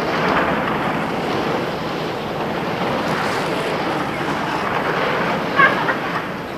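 Steady rustling and rubbing of jacket fabric over a pocket-held camera's microphone while walking. A brief high chirp sounds about five and a half seconds in.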